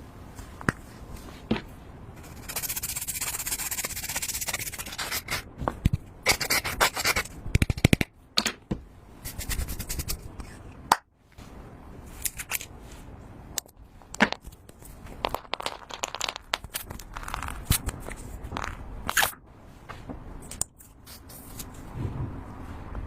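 Slime being stirred and scraped in a container: irregular scraping and rubbing, with a longer hissing scrape a few seconds in and scattered sharp clicks and taps after it.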